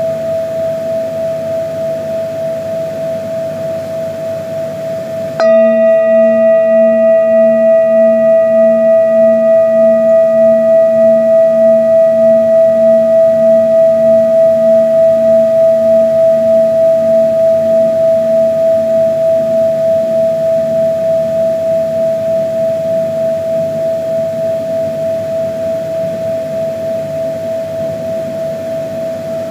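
Singing bowl ringing with a slow wobble about twice a second. It is struck again about five seconds in, adding brighter overtones that fade slowly as the bowl rings on.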